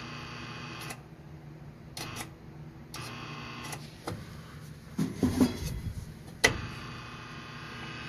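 Electrical buzz from a faulty relay in the wood boiler control, cutting in and out with sharp clicks; the loudest click comes about six and a half seconds in, after which the buzz holds steady. The relay is frying inside, which the technician suspects is what burnt out the transformer.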